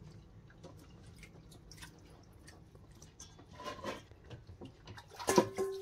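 Water dripping and light wet clicks as washed anchovies are handled in a stainless-steel bowl at a sink. Near the end, plucked-string music like a ukulele starts.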